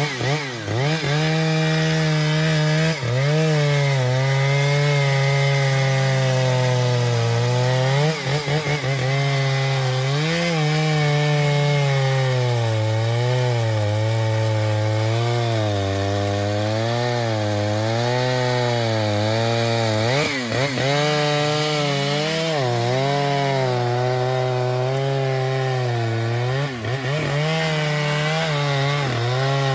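Chainsaw cutting through wood, its engine pitch wavering up and down under load, with brief drops in speed a few times.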